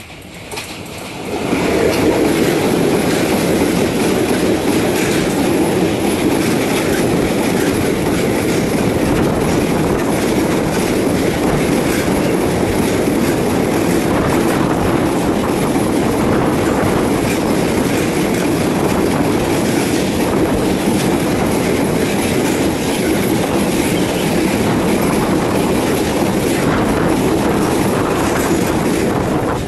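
Freight train passing close by: a ČD Cargo class 240 electric locomotive arrives about a second and a half in with a sharp rise in loudness, then a long string of double-deck car-carrier wagons rolls past with loud, steady wheel-on-rail noise.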